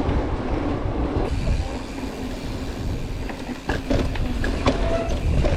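Mountain bike riding over a rough dirt trail: tyre and frame rumble with wind on the microphone, and sharp rattles and clacks of the bike from about three and a half seconds in.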